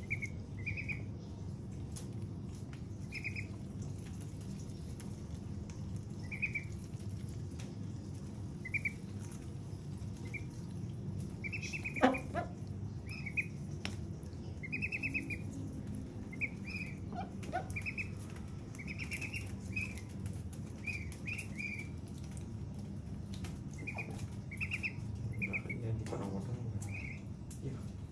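Young white ducks peeping with short, high calls repeated at irregular intervals while they peck at watermelon, with light pecking clicks. One sharper, louder sound about twelve seconds in.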